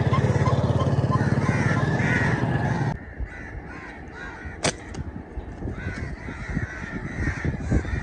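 Crow-like caws over a loud, dense low rumble. About three seconds in this gives way to a quieter stretch with one sharp snap near the middle and a few knocks near the end.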